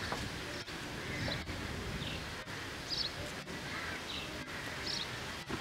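Low outdoor background noise with several faint, short bird chirps scattered through it, roughly one a second.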